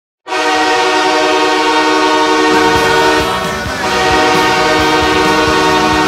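Los Angeles Kings arena goal horn blasting suddenly and holding one long, loud, steady chord. About two and a half seconds in, a thumping beat from the goal song joins in under the horn.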